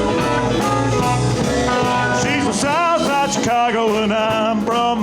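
Live blues band playing, with guitar, bass and drums; about two seconds in, a singer comes in on a wavering, vibrato-laden line.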